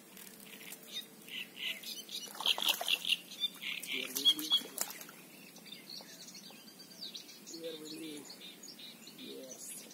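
Small birds chirping, with a flurry of sharp clicks and rustles about one to five seconds in. A low voice mutters briefly near the end.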